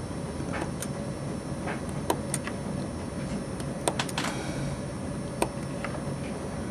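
X-Acto hobby knife cutting small plastic parts off a kit sprue: about ten short, sharp clicks and snaps at uneven intervals as the blade presses through the plastic, over a steady low hum.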